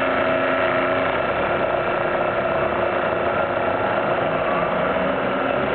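Hose pressure-test pump running steadily: an even mechanical drone with several steady tones held throughout.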